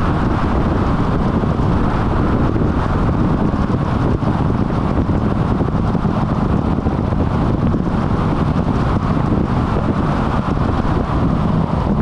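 Steady rush of wind on the microphone mixed with the road and tyre noise of a vehicle cruising along an expressway.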